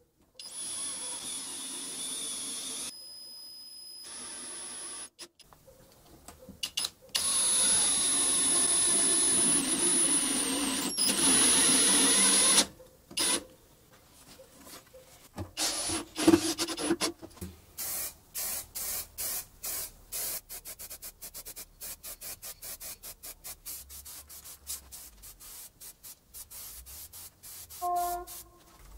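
A power drill running as it bores into laminated chipboard, then driving a screw into the board with a steady whine. Later a spray-paint can is shaken, its mixing ball rattling in a fast, even rhythm.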